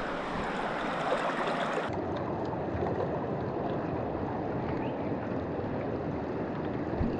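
Shallow, rocky river riffle: a steady rush of water flowing over stones.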